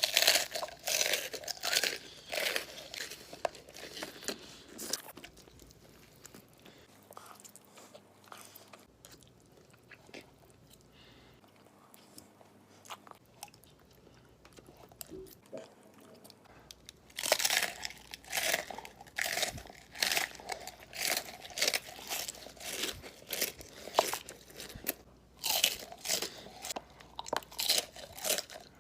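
Close-miked biting and chewing of crunchy food, in quick crunching strokes. It is loud for the first few seconds, quieter chewing follows, and loud crunching returns about two-thirds of the way through.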